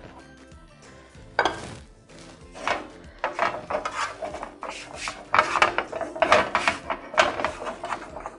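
Hands rubbing butter over a baking sheet to grease it: a series of brushing, rubbing strokes that start about a second and a half in and come faster and more often toward the end.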